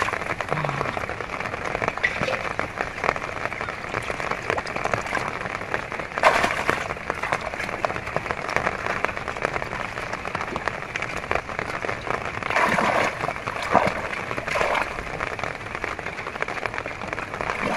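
Hands stirring and splashing in shallow muddy water while feeling for catfish: a steady sloshing and trickling, with a louder splash about six seconds in and a few more about two-thirds of the way through.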